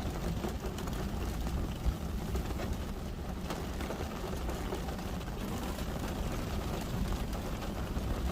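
Heavy rain falling steadily on a car's roof and glass, heard from inside the cabin as an even hiss over a low rumble, with scattered drop ticks.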